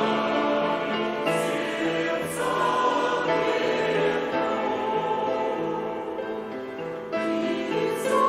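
A choir singing a hymn in several voices, with long held chords that change about once a second or two.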